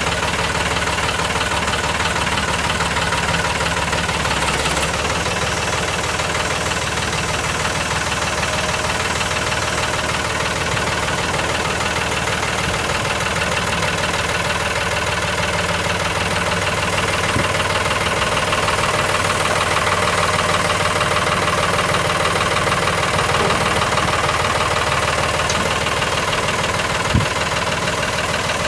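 New Holland 3930's three-cylinder diesel engine idling steadily, with one short tap near the end.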